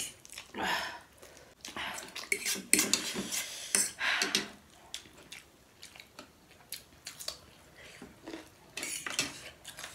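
Metal forks clinking and scraping on ceramic plates while eating noodles, with several louder patches of slurping and breathing, the loudest a little past the middle.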